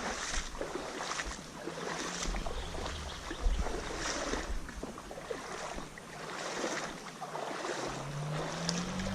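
Shallow creek water sloshing and splashing around a person wading, in uneven surges about once a second.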